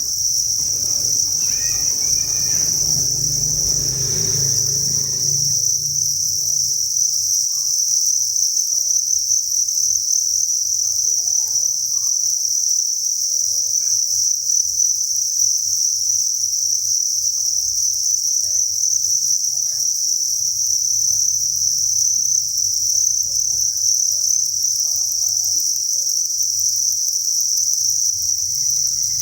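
Dense chorus of thousands of farmed crickets chirping together, their calls merging into one steady, high-pitched trill.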